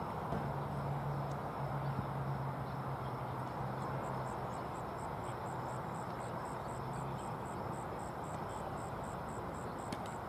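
Outdoor background hiss with insects chirping steadily, about three chirps a second, from about four seconds in. A low steady hum fades out about seven seconds in. Near the end there is a short sharp crack as the batter swings at a pitch.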